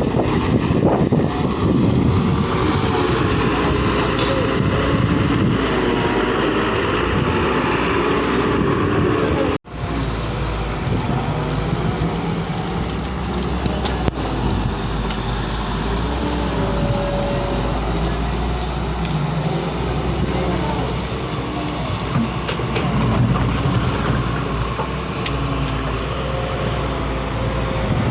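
Doosan excavator's diesel engine running under load as it works, a steady mechanical rumble, with wind buffeting the microphone. The sound drops out for an instant about a third of the way through and picks up again.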